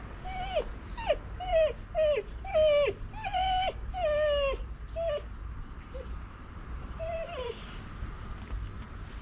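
Siberian husky whining in a sad, high voice: a run of about a dozen short whines, each dropping in pitch at its end, coming quickly one after another, then sparser, with a last longer whine about seven seconds in.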